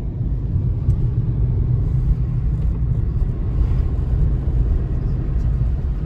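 Car driving: a steady low road rumble.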